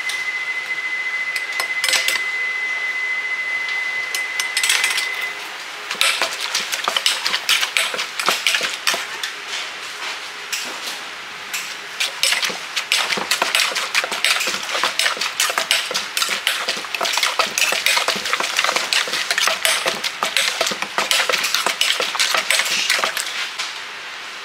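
Dishes and metal utensils clattering and clinking in dense, irregular strikes. A steady high tone is held for about the first five seconds.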